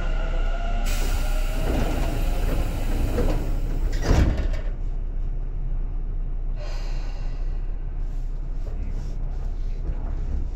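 Sliding passenger doors of a Tobu 10000 series commuter train working: a rush of air hiss from about a second in, ending in a heavy thump about four seconds in, over the car's steady low rumble.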